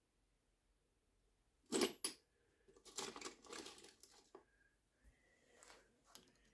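Small metal pieces clinking on a hard surface: a sharp double clink about two seconds in, then about a second and a half of light clattering and clicking.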